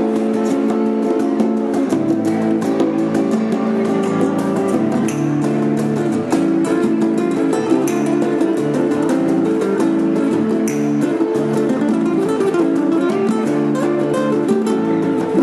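Instrumental duo: an amplified nylon-string guitar plays quick plucked and strummed lines over hand percussion on bongos and congas, with no pause.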